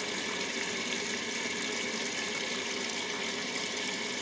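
Hotpoint washing machine filling with water through the pre-wash compartment of its detergent drawer: a steady rush of incoming water.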